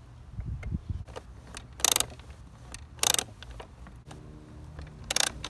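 Plastic ratchet lift of a toy car-hauler playset being pumped up with its lever: three short bursts of rapid clicking.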